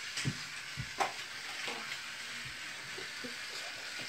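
Battery-powered plastic toy train running along plastic track with a steady rattling whir, and a few sharp clicks of toy pieces being handled, one about a second in.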